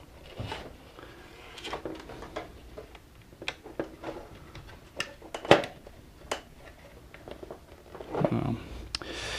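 Handling noise from working the old toothed rubber carriage belt out of the plastic print carriage of an HP Designjet plotter: scattered small clicks and taps of plastic, the sharpest about halfway through. A short low vocal sound comes near the end.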